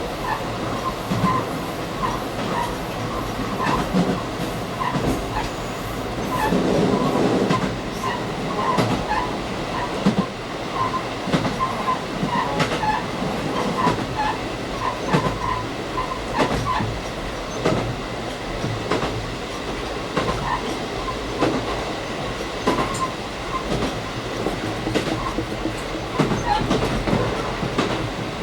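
A KiHa 185 diesel limited express train running on the line, heard from inside the car: a steady running rumble with wheels clacking irregularly over rail joints and short wheel squeals scattered throughout.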